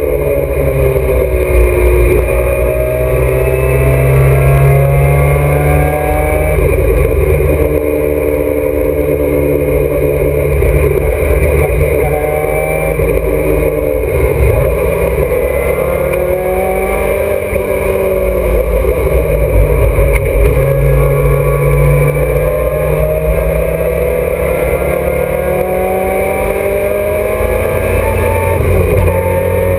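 Alfa Romeo GTA racing car's four-cylinder twin-cam engine heard from inside the cabin under hard driving. The engine note repeatedly climbs and then falls away as it accelerates, shifts gear and slows for corners.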